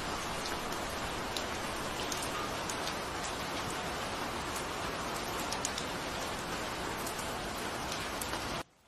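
Steady rain falling, a dense even hiss with individual drops ticking here and there. It cuts off suddenly near the end.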